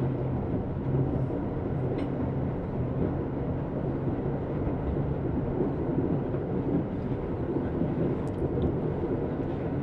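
Steady low rumble of a commuter train rolling along the rails, heard from inside its cab car, with a faint click about two seconds in and another near the end.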